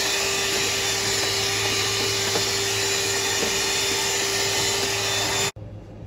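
Portable cordless handheld vacuum running steadily with one steady tone through its noise while cleaning the brewer compartment of a coffee vending machine; it cuts off suddenly near the end.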